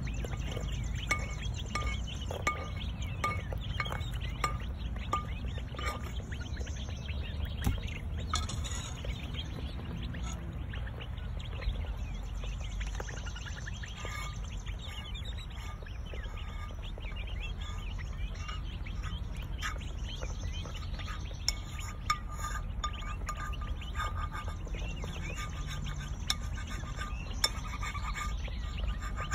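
Young northern bobwhite quail peeping softly and repeatedly while pecking feed from a plastic tray, with scattered light ticks, over a low steady outdoor rumble.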